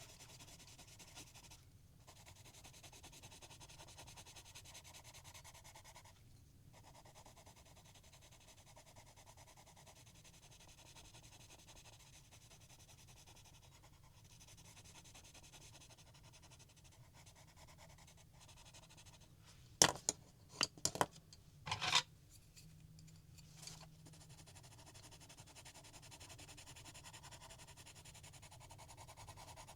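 Pencil rubbing back and forth on coloring-book paper as a page is coloured in: a faint, steady scratchy shading that pauses briefly a couple of times. About two-thirds of the way through, a short run of sharp, much louder clicks.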